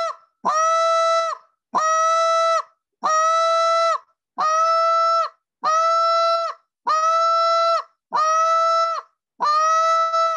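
Short reed goose call blown in a slow, even series of moans: about eight long notes a little over a second apart, each sweeping up from a low start into a steady held tone.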